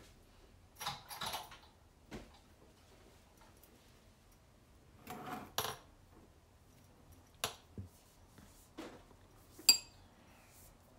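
Scattered clicks and clinks of cutlery, a ceramic bowl and a glass jar being handled on a wooden table, with a brief rustle about five seconds in. The sharpest, ringing clink comes near the end.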